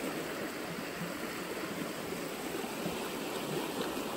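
Shallow creek water running steadily over a rocky cobble bed: an even, constant rush.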